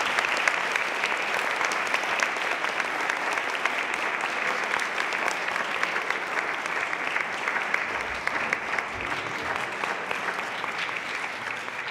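Audience applauding steadily in a large hall, dense clapping that tapers off slightly near the end.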